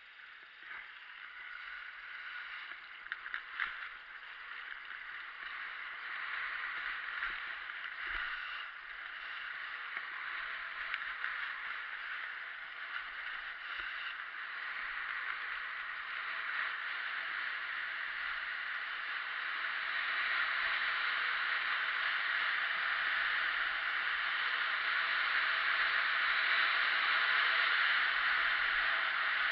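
Skis hissing and scraping over packed, groomed snow on a downhill run, with a few small knocks in the first few seconds. The hiss grows steadily louder as speed builds.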